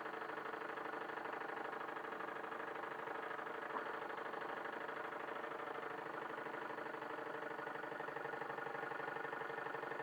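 Wilesco D21 live-steam model engine running steadily under steam with a fast, even beat, driving a 3D-printed Baker fan. A single small click about four seconds in.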